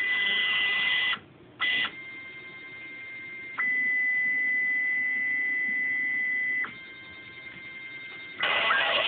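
Stepper motors of a Bluumax CNC router kit driving the gantry through a pen-plot program. A steady high whine that shifts in level every few seconds as one move ends and the next begins, with a brief dip about a second in.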